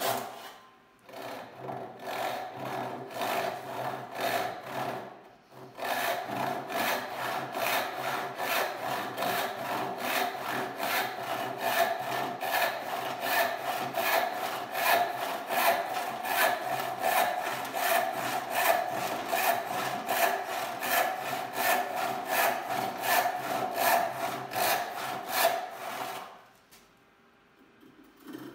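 Hand rip saw, a Disston D8 with 5.5 points per inch, cutting down the grain of a board in even back-and-forth strokes. It pauses briefly about a second in and again around five seconds in, then saws steadily and stops near the end.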